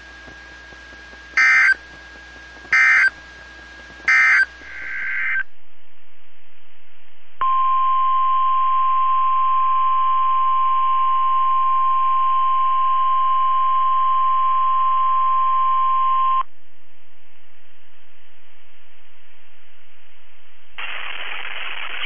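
NOAA Weather Radio broadcast over a receiver. It opens with three short digital data bursts about a second and a half apart: the SAME end-of-message code closing the previous test. After a cut and a moment of receiver hiss comes the steady 1050 Hz weather radio alert tone, held for about nine seconds. The broadcast sound picks up again near the end.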